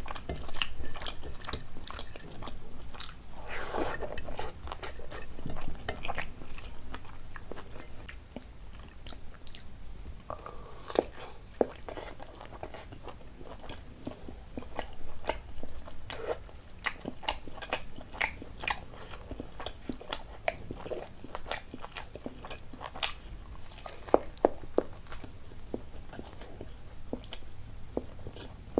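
A person chewing and eating a meal close to the microphone: wet mouth sounds with many irregular crisp clicks and crunches.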